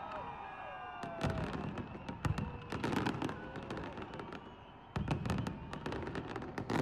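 Fireworks going off: an irregular series of sharp bangs and crackles, with a louder cluster about five seconds in.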